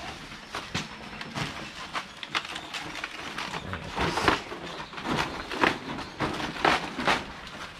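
Large fresh banana leaves rustling and crinkling as they are spread and pressed by hand over an umu earth oven to cover it, in many irregular short crackles.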